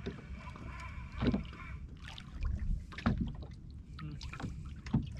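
Water slapping against the hull of a small drifting fishing boat, with wind on the microphone and three sharp thumps about two seconds apart.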